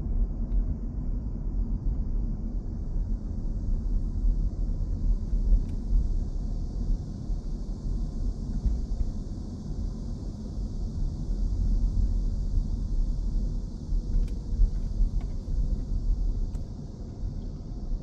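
Outdoor ambience: a gusty low rumble with a steady high hiss above it and a few faint clicks in the second half.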